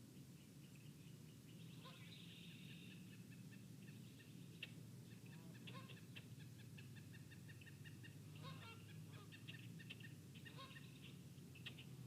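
Faint wild bird calls: short notes repeated in quick even series, with a few downward-sweeping calls mixed in, over a steady low hum.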